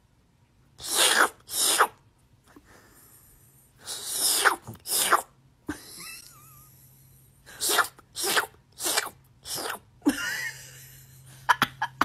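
A person making short, breathy 'shoop' noises with the mouth to get a cat's attention. The bursts come in a pair, another pair, then four in quick succession.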